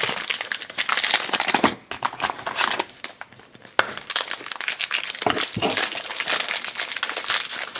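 Foil wrappers crinkling as a Grossery Gang Yuck Bar blind pack is opened by hand: the gold foil sleeve is pulled off the plastic bar case, then a yellow foil bag is crumpled and worked open. There is a short lull about three seconds in.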